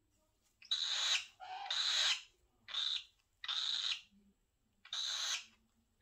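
Male cockatiel hissing at being handled, a run of about five short raspy hisses roughly a second apart.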